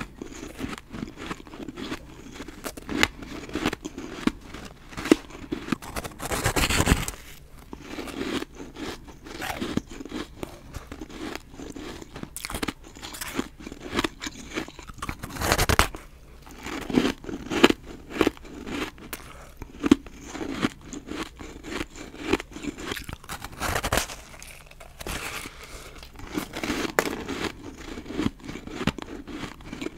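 Crisp crunching as a person bites and chews frozen snowballs of dry, powdery refrozen ice, with two louder bites about a quarter and halfway through.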